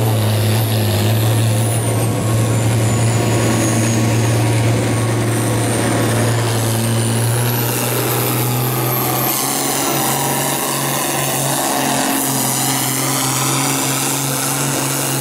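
International Harvester pulling tractor's diesel engine running flat out under heavy load while dragging a weight-transfer sled, a steady low engine note with a high whine that rises and falls above it. The engine's note shifts about nine seconds in, and the sound falls away at the very end as the pull ends.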